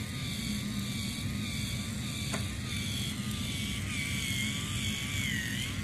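Small battery-powered K'NEX motor driving the walker's crank-and-leg mechanism: a steady whir with a thin whine that wavers up and down, running fast and high-pitched on fresh batteries.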